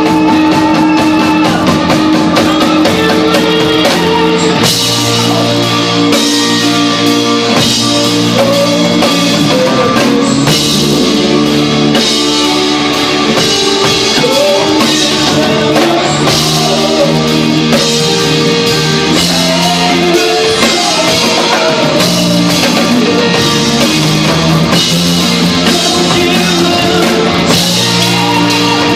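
A rock band playing live and loud, with drum kit and guitar.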